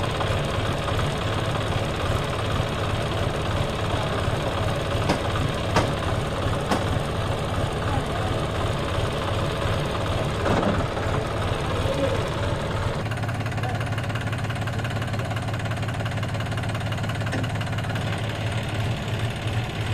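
John Deere 5050D tractor's three-cylinder diesel engine running with a steady, low, pulsing knock, a few sharp clicks about a quarter of the way in, and a steadier hum from about two-thirds of the way in.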